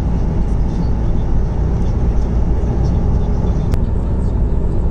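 Steady road and engine rumble heard inside a moving car's cabin, with a single click a little over three and a half seconds in.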